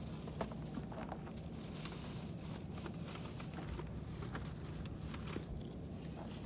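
Irregular light footsteps and rustles over a steady low hum.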